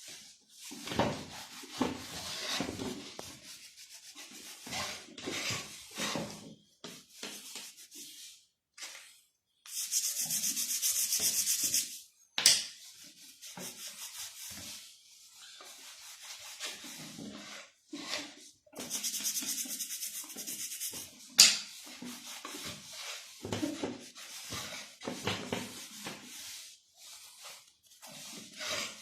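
Hand rubbing and scrubbing at a Honda CG 125 motorcycle rear hub while polishing it with red compound, in irregular strokes. Twice there is a steady hiss of about two seconds, each ending in a sharp click.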